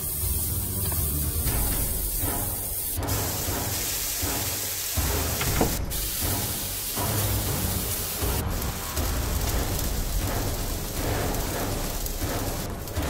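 Carrots, peas and rice sizzling in a hot stainless steel frying pan as they are stirred and tossed with a wooden spatula, a steady hiss with a few sharp clicks.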